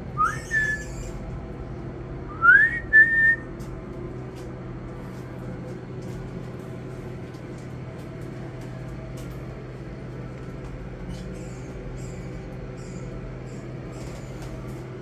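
Two short whistles about two seconds apart, each a quick upward glide that ends on a brief held note, over a steady low hum. Faint high chirps come in near the end.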